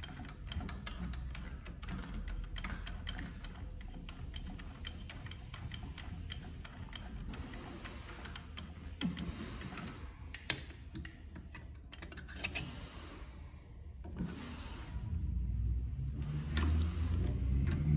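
Consew long-neck walking-foot industrial sewing machine being worked by hand while its thread is set up: a long run of small, irregular clicks and ticks from the mechanism and thread, thinning out later, with a low rumble coming in near the end.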